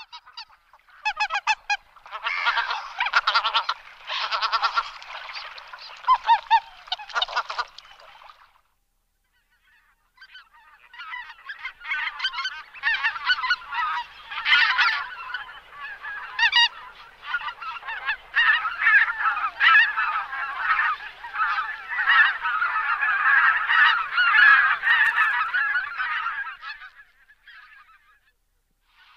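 Greater white-fronted geese calling with rapid honking calls. A first burst of calls is followed by a short break, then a long stretch of many overlapping calls from a flock.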